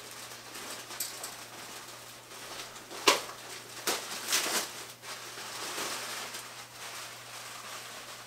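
Plastic packaging crinkling and rustling as a jersey is unwrapped by hand, with a few sharper crackles.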